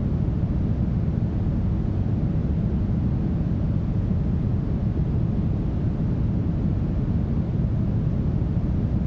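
Smoothed brown noise: a steady, even rushing sound, heaviest in the deep bass and thinning out toward the treble.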